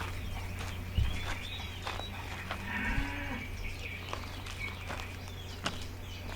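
A farm animal, likely livestock, gives one short, low call that rises and falls about three seconds in. It sits over a steady low hum, with scattered clicks and faint high chirps.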